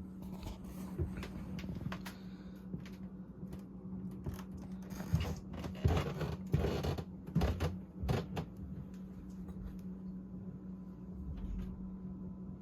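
Casablanca Delta 2 Slumber 3 ceiling fan from 1987 running on low speed, its motor giving a steady low hum. Irregular clicks and knocks come through, most of them around the middle.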